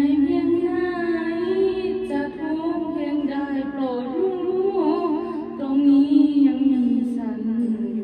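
A woman singing a Thai song into a handheld microphone, holding long, wavering notes with vibrato.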